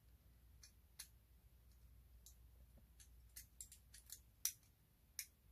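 Faint, scattered small clicks of Top Plate spinning-top parts being handled and pressed together by hand, the running core being tried for fit in a binding that won't lock into place.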